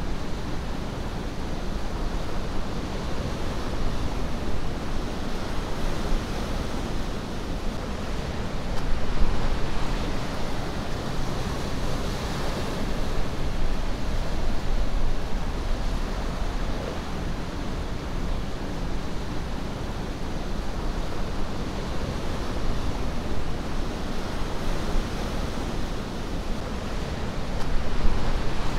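Steady rushing of ocean surf, swelling briefly about nine seconds in and again near the end.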